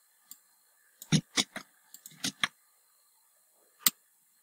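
Computer keyboard keys and mouse buttons clicking while text is selected, copied and pasted: about eight separate clicks, most of them in a quick cluster between one and two and a half seconds in, and one more near the end.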